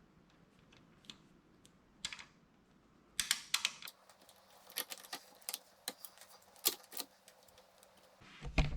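Irregular metallic clicks and clinks of a 19 mm box-end wrench working the nut on a clamp-on highway peg. A few sparse clicks come first, growing busier from about three seconds in.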